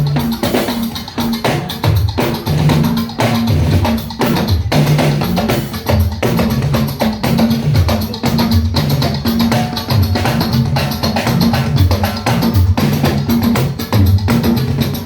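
Band sound check: instrumental music driven by drums and percussion, with a bass line moving between notes under a steady, busy rhythm of knocks.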